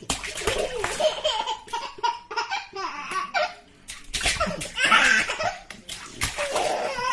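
A baby laughing and squealing in bouts while splashing water in a bath, with sharp slaps of water between the laughs.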